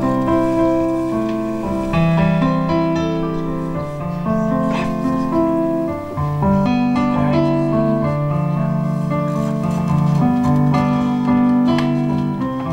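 Instrumental keyboard music, piano-like, playing held chords that change every second or two.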